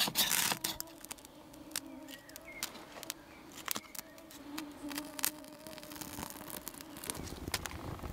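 A ferro rod struck sharply against tinder right at the start, then scattered small crackles and ticks as the tinder catches and a small wood fire burns.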